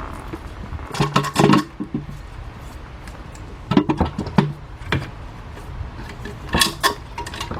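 Metal tools and bolts clinking and clattering as they are handled, in four or five short bursts of clicks and knocks.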